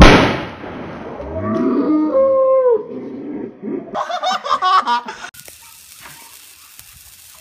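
A ground firework bursts with a sudden loud bang at the start that fades over about a second. Then come long, wavering cries that rise and fall in pitch. After an abrupt cut, a firework fountain hisses faintly.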